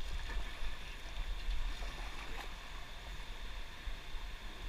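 Rushing river water around a whitewater raft as the crew paddles, with a few faint paddle strokes in the water and a steady low rumble.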